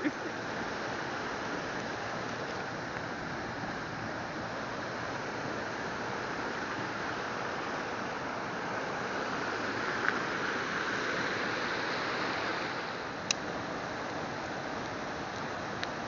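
Steady rush of running water from a waterfall stream, with a few sharp clicks.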